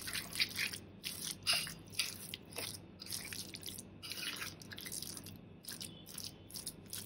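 Metal spoon stirring grated raw mango in oil and spice mix in a glass bowl: irregular wet squishing and scraping strokes, several a second.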